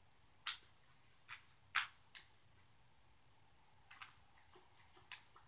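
Tarot cards being handled and shuffled by hand: a few short, light snaps of the deck, two sharper ones in the first two seconds, then a scatter of faint ticks near the end.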